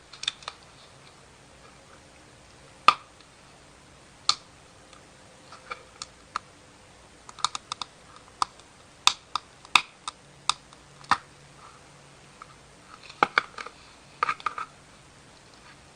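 Slime being squeezed and poked by hand, making scattered sharp clicks and short crackling pops at an irregular pace, with denser bursts about halfway through and near the end.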